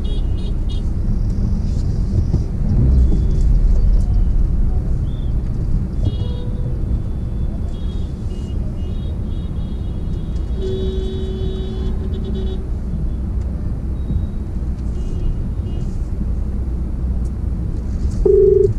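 Steady low rumble of a car idling in stop-and-go traffic, heard from inside the cabin, with scattered short high beeping tones from the street. A weaker horn sounds for about two seconds around the middle, and a loud car horn blast comes near the end.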